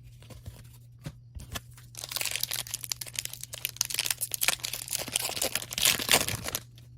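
Foil wrapper of a hockey card pack crinkling and tearing as it is ripped open: a few light clicks, then a dense crackle starting about two seconds in and stopping sharply near the end.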